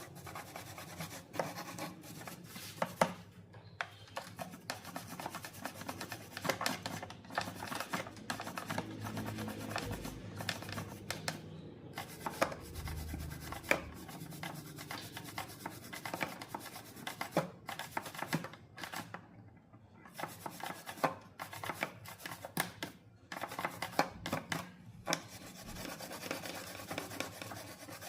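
Close handling noise of hands working on a small object: irregular scraping and rubbing, with many sharp clicks and taps scattered throughout.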